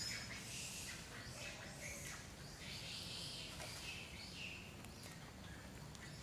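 Outdoor forest ambience: a steady low background hum with faint, scattered high chirping calls.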